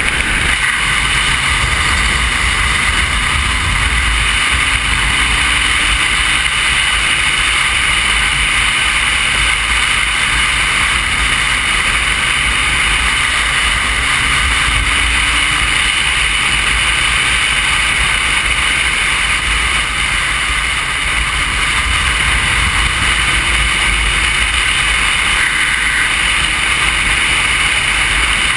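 Motorcycle riding at road speed, heard from a camera on the bike: a steady, loud rush of wind over the microphone, with the engine's note faintly underneath, rising gently a few times as the bike speeds up.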